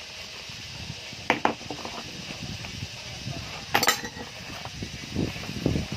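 Hard objects being handled and knocked together over a steady hiss, with two sharp clinks, about a second in and near the four-second mark, and some low knocks near the end.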